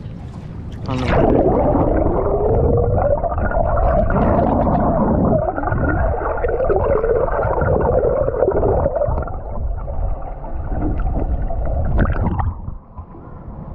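Muffled underwater gurgling and rumble, with a rising pitch about a second in, as heard by a camera microphone under the water. It stops near the end as the microphone comes out of the water.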